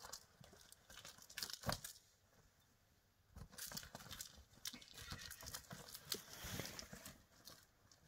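Shopping bag rustling and crinkling as a kitten scrambles around inside it: a few short scuffles in the first two seconds, then a longer stretch of steady rustling from about three and a half seconds in.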